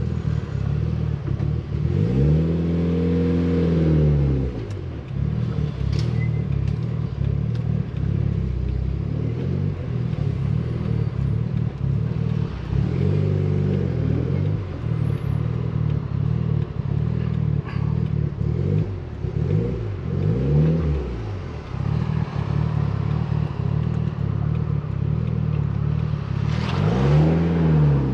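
Mitsubishi Lancer Evolution VIII's turbocharged 4G63 four-cylinder engine running while driving, the revs climbing and dropping back four times.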